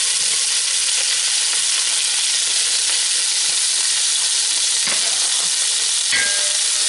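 Cubes of beef sizzling as they brown in hot oil in a stainless steel pot, a steady frying hiss. A wooden spoon stirs them, with a knock about five seconds in and a short ringing clink about a second later.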